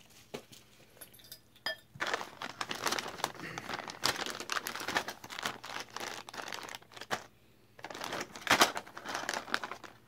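Clear plastic packaging bags crinkling and rustling as they are handled and turned over, in two long stretches with a short pause about seven seconds in; only a few light clicks in the first two seconds.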